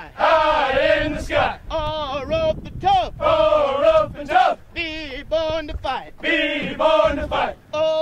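A voice singing held, melodic phrases with a wide vibrato, the phrases broken by short breaths every second or so.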